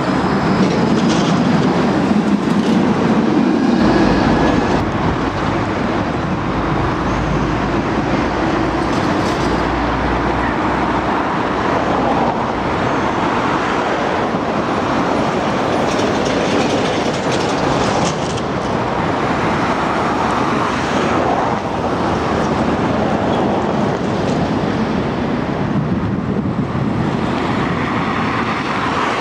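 A tram running along its rails, a steady rail rumble with a deeper low rumble for a few seconds near the start.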